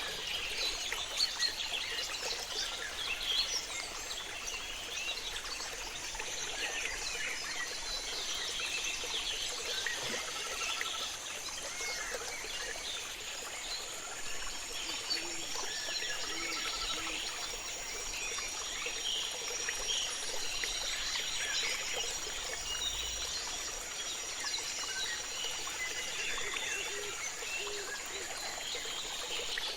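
Tropical rainforest river ambience: running river water and many birds chirping and calling throughout. A steady high-pitched whine joins about six seconds in and changes pitch slightly about halfway through.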